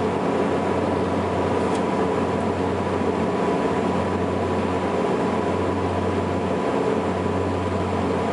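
Twin General Electric CT7 turboprop engines and propellers of a Saab 340B heard inside the cabin in flight: a steady, even drone with a strong low hum and a thin steady whine above it.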